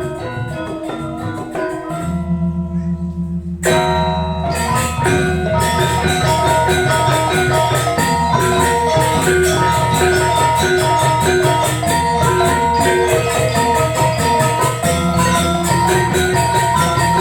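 Balinese gamelan ensemble playing, with bronze metallophones striking rapid interlocking patterns. About two seconds in the upper parts drop away over a low sustained hum, and a little later the full ensemble comes back in loudly with cymbals and dense fast strokes.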